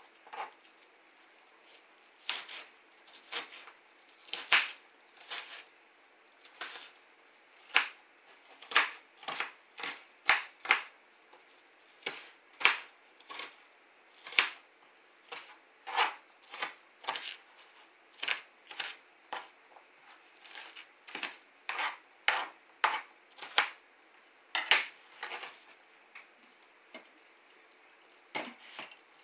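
Kitchen knife chopping an onion on a cutting board: irregular sharp knocks, about one or two a second, thinning out near the end.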